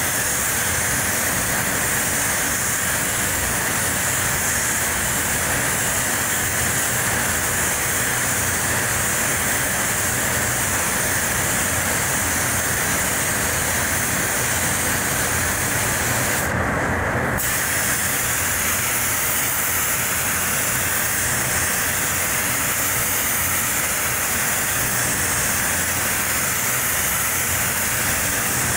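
Steady hiss of a compressed-air paint spray gun laying clear coat, over the rush of the paint booth's ventilation; the high hiss thins out briefly a little over halfway through.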